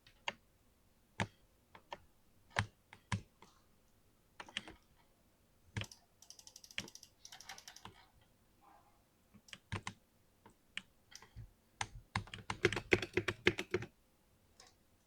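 Computer keyboard typing: scattered single keystrokes, a quick run of soft even clicks about six seconds in, and a fast burst of typing about twelve seconds in, the loudest part.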